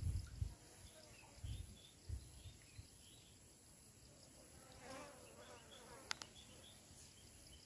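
A flying insect buzzing past close by about five seconds in, over a faint steady high insect hum and scattered small chirps. A few low bumps in the first couple of seconds and one sharp click just after six seconds.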